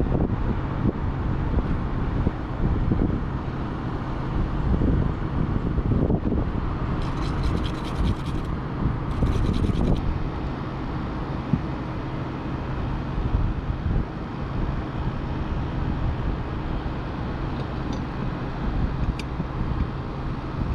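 Scratchy rubbing as the RV TV antenna's lift gear is wiped down by hand, in two short spells about seven and nine seconds in, over a steady low rumble.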